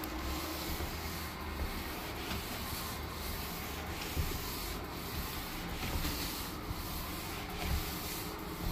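Spray mop pad rubbing in repeated back-and-forth strokes across a hard floor, over the steady hiss of an air purifier running on high.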